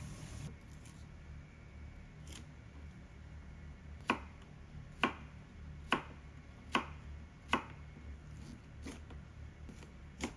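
Kitchen knife chopping vegetables on a cutting board: five slow cuts about a second apart, then one more near the end.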